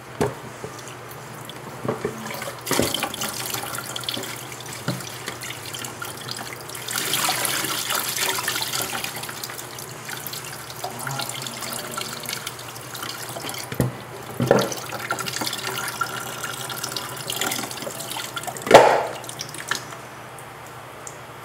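Kitchen tap running into a sink as lettuce leaves are rinsed, with a few knocks from handling; the loudest knock comes near the end.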